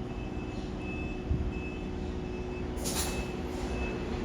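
Express train running through a station with a steady low rumble, while a thin high-pitched electronic beep repeats about every 0.7 s. A short burst of hiss comes about three seconds in.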